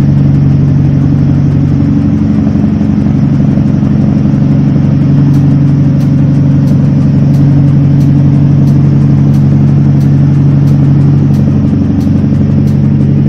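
Tugboat's diesel engines running steadily under way on a sea trial: a loud, even drone over the churn of the propeller wash at the stern. The propeller thrust is strong.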